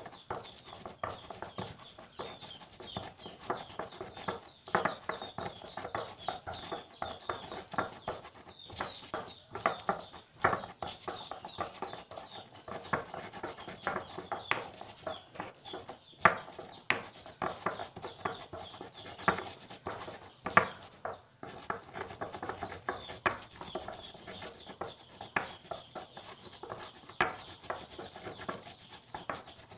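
Stone pestle grinding garlic, coriander seeds and salt into a paste in a stone mortar (cobek and ulekan): continuous scraping strokes broken by irregular sharp knocks of stone on stone.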